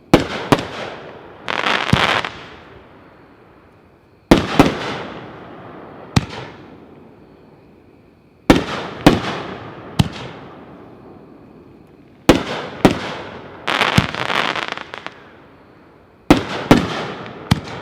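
Shockwave 'Shock & Awe' consumer firework cake firing its shots about every four seconds. Each shot gives a sharp bang followed by one or two further reports, and some end in a short rush of noise.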